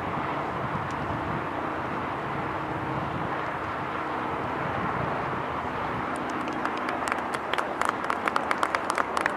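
Steady outdoor background noise, then scattered hand clapping from spectators starting about two-thirds of the way in and building.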